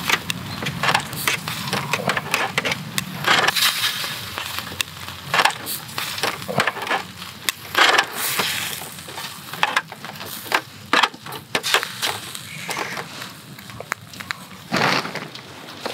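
Thin slices of beef tongue sizzling and crackling on the wire grate of a disposable charcoal grill, with irregular sharp pops and the clicks of metal tongs on the grate as the slices are turned.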